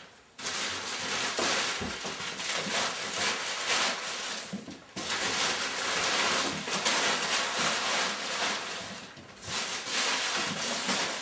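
Crumpled packing paper rustling and crackling as it is pressed into the top of a cardboard carton, with two short pauses.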